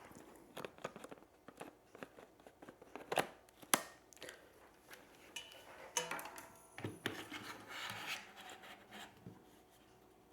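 Camera gear being handled while a telephoto lens is swapped and set on a pan-and-tilt head: scattered clicks, knocks and rubbing, with two sharper knocks a little past three seconds in.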